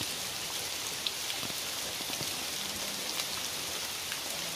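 Heavy rain falling steadily: a dense, even hiss with scattered individual drop hits.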